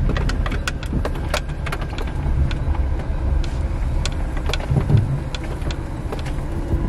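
Car engine idling, heard from inside the cabin as a steady low rumble, with scattered short clicks over it.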